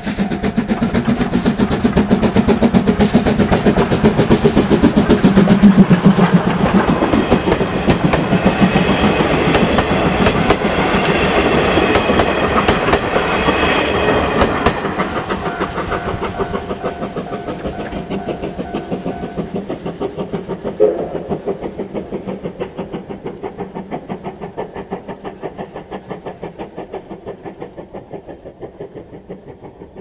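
Steam locomotive C11 325, a tank engine, and its 50-series passenger coaches running past on jointed track, the wheels clattering in a steady rhythm. The sound grows loud as the train draws close, peaks about five seconds in, then fades steadily as the coaches pass and recede.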